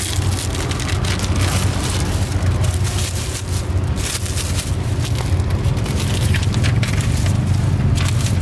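Steady low rumble of road traffic under quick crackling rustles of plastic gloves and bags being handled.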